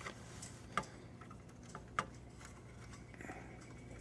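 A few light clicks and taps, the three loudest about a second apart, from handling a paperclip pin set through a router's plastic power switch.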